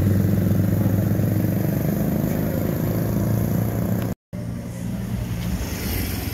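Small motorcycle engine running steadily, close by, as it pulls a sidecar street-food cart along the road. About four seconds in the sound cuts off abruptly and gives way to quieter street ambience.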